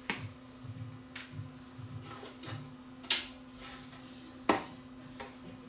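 Scattered light clicks and knocks of hands handling a turntable chassis and small tools, with two sharper knocks about three and four and a half seconds in, over a faint steady hum.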